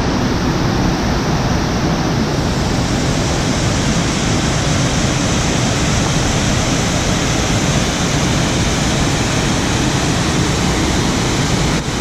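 Waterfall: a loud, steady rush of falling water with no break.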